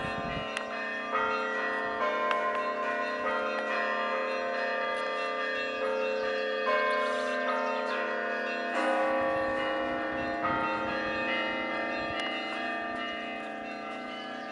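Orthodox church bells ringing: several bells of different pitches struck in a quick, irregular pattern, their tones ringing on and overlapping.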